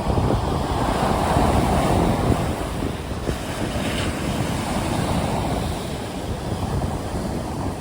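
Sea waves breaking and surging in a strong wind, with wind rumbling on the microphone. The surge swells over the first couple of seconds and then eases slightly.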